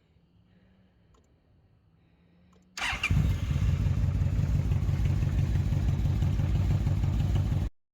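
2005 Yamaha Royal Star Venture's V4 engine, with freshly rebuilt carburetors, starting suddenly about three seconds in after a faint steady hum. It runs loud and evenly with a rapid low pulse for about five seconds, then cuts off abruptly.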